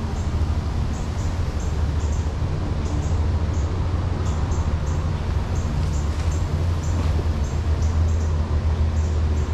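A steady low rumble, with faint short high chirps now and then.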